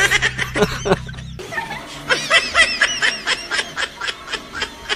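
A person laughing in a long run of quick, high-pitched giggles, about four or five a second.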